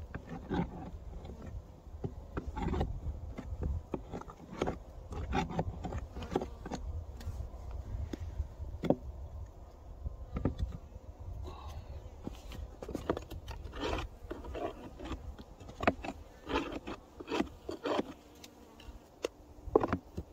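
Irregular scraping and knocking against wooden beehives as the hive entrances are cleared of snow and dead bees, with honey bees buzzing.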